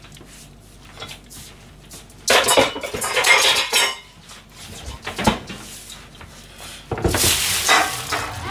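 Kitchen cookware and utensils clattering as they are handled: a burst of clatter about two seconds in, a single knock a few seconds later, and a second burst near the end.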